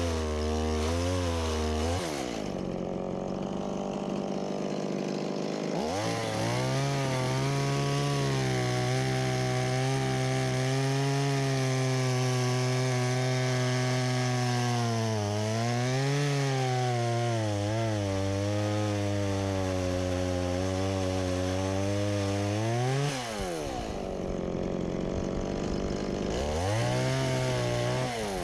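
Stihl MS170 two-stroke chainsaw cutting wood at high throttle. It drops back to a lower speed about 2 s in, then holds high again from about 6 s, its pitch sagging briefly under load around the middle. It revs up and falls off about 23 s in and revs again near the end.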